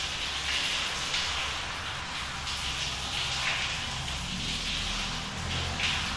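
Overhead shower running: a steady hiss of water spraying and splashing.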